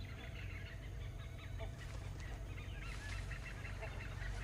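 Birds calling in forest: many short overlapping chirps, with a few short, lower honking calls about one and a half, three and four seconds in.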